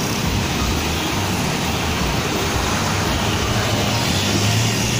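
Steady street traffic noise from passing cars and motorcycles. A low steady tone comes in near the end.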